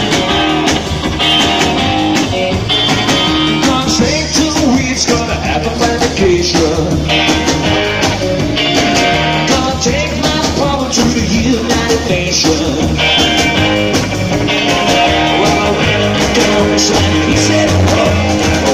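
Live rock and roll band playing loud: hollow-body electric guitar, upright bass and drum kit with a steady beat, with a man singing.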